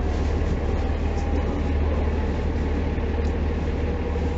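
Mercedes-Benz O405 city bus's rear-mounted diesel engine running steadily, heard from inside the bus as a constant low drone with road and cabin rumble.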